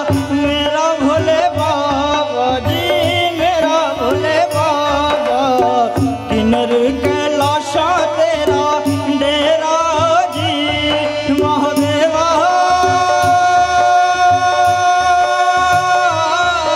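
Male voice singing a Hindi devotional bhajan to Shiva, with ornamented, wavering phrases, accompanied by tabla and an electronic keyboard. About two-thirds of the way through the music settles into a long held note over the continuing tabla rhythm.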